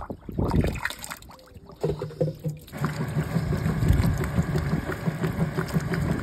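Top-loading washing machine with a central agitator churning a load of clothes in soapy water, with a garden hose running water into the tub. The first couple of seconds are uneven splashing as a hand works in the tub; from about three seconds in a steady churning with a low motor hum takes over.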